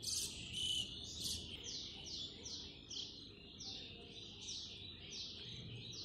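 A bird chirps repeatedly, each chirp a short high note that falls in pitch, about two a second in an even run.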